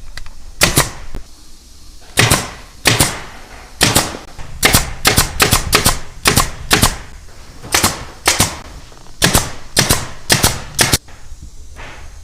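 Pneumatic fastener gun, of the kind used to staple and nail sofa frames and upholstery, firing a quick uneven series of sharp shots, often in pairs. The shots stop about a second before the end.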